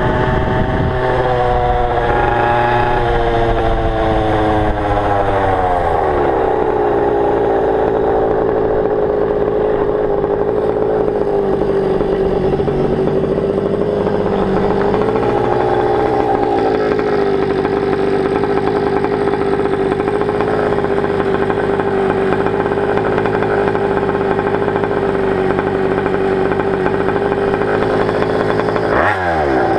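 Goped stand-up scooter's small two-stroke engine, on a 25:1 premix that the owner wonders may be running too rich, dropping from riding speed to idle over the first few seconds, then idling steadily with one brief blip of revs about halfway through.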